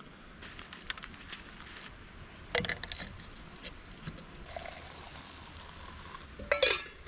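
Hot water poured from a camp kettle into a mug, with small metal clicks from the tea-infuser ball before it. A brief, loud clatter with a short ring comes near the end.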